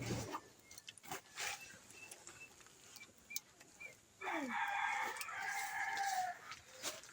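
A rooster crowing once, a single crow of about two seconds beginning about four seconds in and dropping in pitch at the end. A few faint clicks come before it.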